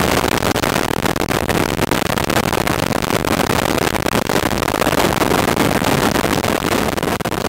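Piper PA-19 Super Cub's engine and propeller running steadily at taxi power, heard loud and close from outside the fuselage.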